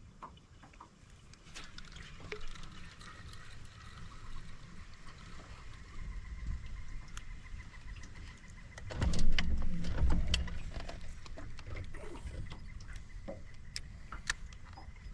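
A boat motor running with a steady high whine over a low rumble of wind and water. About nine seconds in there is a louder burst of knocks and noise.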